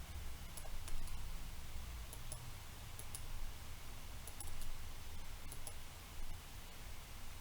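Scattered light clicks from someone working at a computer, several in quick pairs, over a low steady hum.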